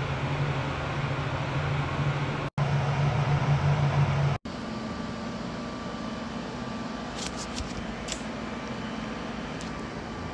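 A steady low electric hum, broken twice by abrupt cuts, gives way about four seconds in to quieter steady room noise with a faint thin whine. A few light clicks come near the end.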